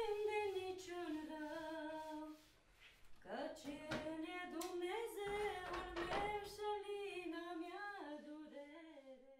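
A woman's voice singing a slow wordless tune in two long phrases, the first sliding slowly downward, with a pause of about a second between them. A few light knocks sound during the second phrase.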